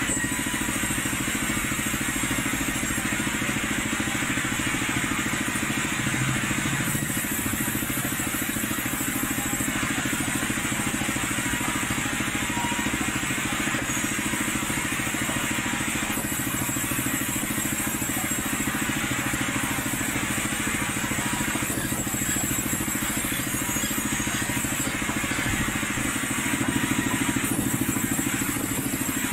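Sawmill machinery running: motor-driven timber saws making a steady mechanical din with a low rumble, swelling slightly near the end.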